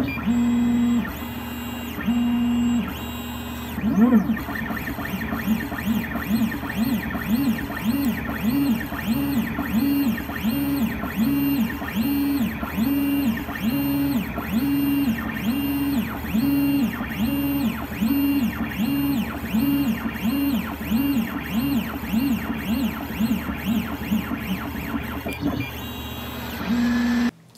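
3D printer's stepper motors whining as the print head moves back and forth laying down a cube's grid infill. The first few seconds are steady held tones. After that the whine rises and falls with each pass, a bit more than once a second.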